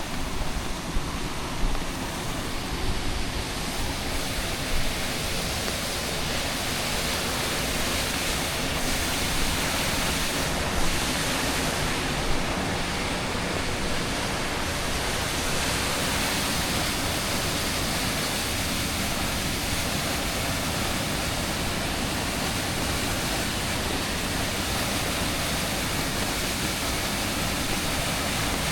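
Waterfall, a steady dense rush of falling water that grows a little louder over the first few seconds and then holds even. A few short knocks come in the first five seconds.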